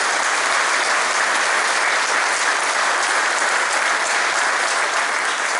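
A crowd applauding steadily, many people clapping at once, among them seated students in white gloves.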